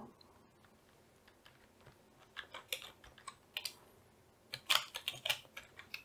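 Computer keyboard keys being typed on: a run of short, uneven clicks that starts about two seconds in, after a quiet pause.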